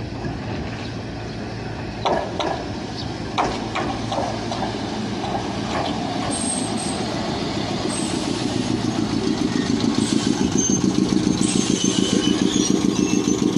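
An old Choshi Electric Railway train pulls slowly into a platform. There is a steady low hum and a few sharp clacks a couple of seconds in, then a rapid, even throbbing that grows louder as the train draws alongside. Faint high brake squeals come near the end.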